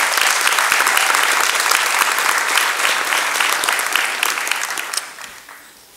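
Audience applauding in a large hall, dense clapping that dies away about five seconds in.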